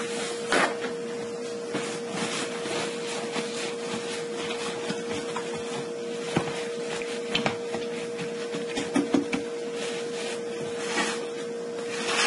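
Paper napkins rustling and rubbing as they are pressed onto a rinsed, salt-cured salmon fillet to blot off moisture, with a few light knocks against the board. A steady hum runs underneath.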